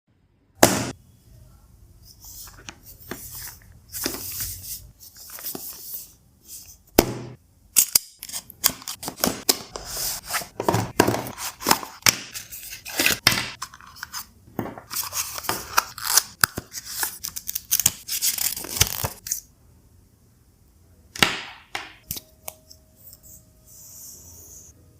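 Hands opening a small product box and its packaging up close: sharp clicks and taps, then a long stretch of dense crackling and rustling handling noise, with a few last clicks near the end.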